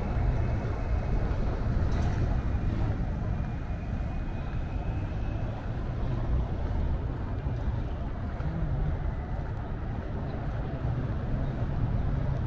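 Open-air city street ambience: a steady low rumble with no distinct events, and a faint thin high whine that drifts in and out during the first half.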